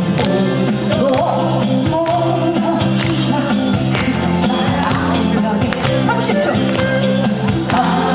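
Live band music from a folk-pop song performance, steady and loud, with a singing voice heard over it at times.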